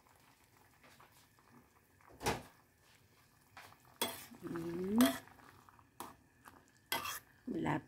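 Slotted spatula stirring noodles in a stainless steel pot, knocking and scraping against the pot: a sharp clink about two seconds in, a spell of clatter about four seconds in, and another knock near the end.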